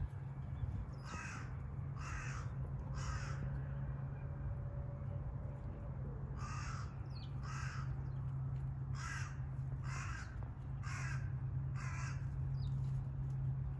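A crow cawing repeatedly: three caws about a second apart, a pause of about three seconds, then six more caws at the same pace, over a steady low hum.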